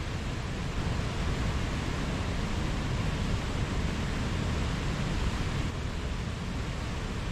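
Mountain stream rushing steadily over rocks, a constant even wash of water noise that swells slightly about a second in and eases back near the end.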